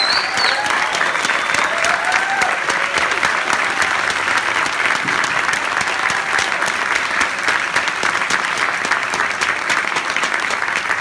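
Audience applauding steadily for a string orchestra taking its bows, with a few cheering voices and a short whistle near the start.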